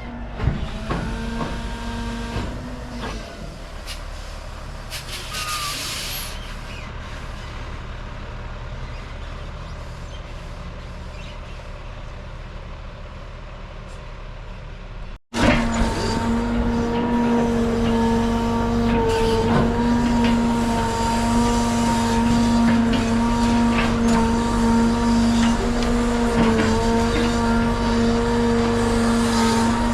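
A large engine running steadily with a low hum, likely machinery working on the reinstall. It cuts out for an instant about halfway through, then comes back louder.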